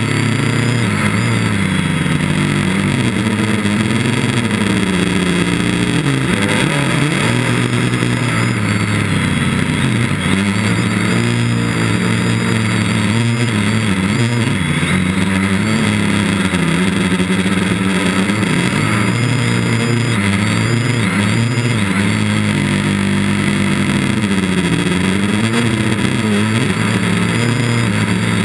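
Quadcopter's electric motors and propellers buzzing, heard up close from a camera on the craft. The pitch keeps rising and falling as the throttle changes.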